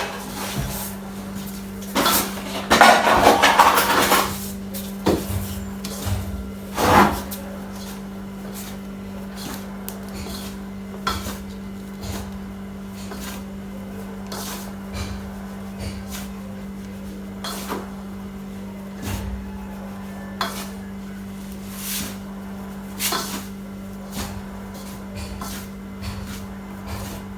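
Margarine and flour being mixed by hand in a bowl: soft rubbing with scattered knocks and clinks of the bowl and utensils. A steady low hum runs underneath.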